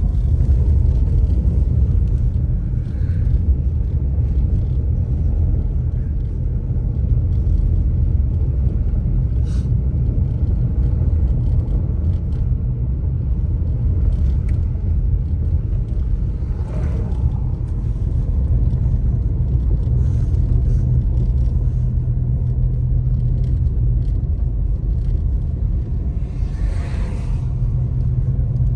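Car driving on a snow-covered road, heard from inside the cabin: a steady low rumble of engine and tyres. One sharp click comes about ten seconds in, and two brief swishes come later.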